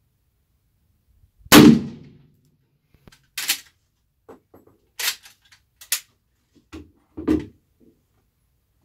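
A single lever-action rifle shot about a second and a half in, with a low boom and short ringing tail. It is followed by several sharp metallic clacks and knocks as the rifle's action is worked and the rifle is handled and set down.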